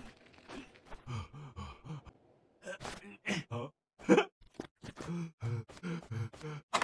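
A man's strained grunts and gasps of effort in short separate bursts, mixed with short crunching sounds.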